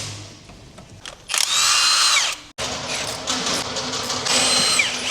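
Handheld power tool run in two bursts of about a second each, its whine dropping in pitch as it winds down at the end of each.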